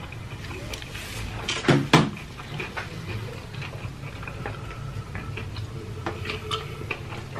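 Two loud knocks on the tabletop about two seconds in, then gulps from a glass mug of water and chewing, with small scattered clicks.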